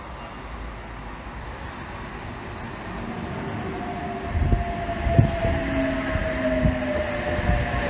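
Oscar H-set double-deck electric train pulling into a station platform. The rumble builds, then from about halfway a steady electric whine slowly falls in pitch as it slows, with several heavy low thumps, the loudest about 5 seconds in.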